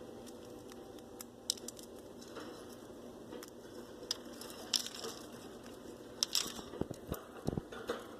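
Pet birds pecking and cracking seed from a hand: scattered sharp clicks and crunches, coming more often in the second half.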